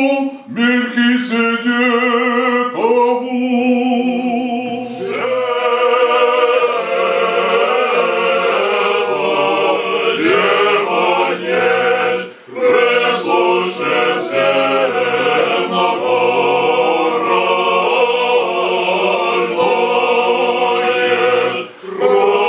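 Several voices singing Orthodox liturgical chant a cappella in harmony, with short pauses between phrases about halfway through and near the end.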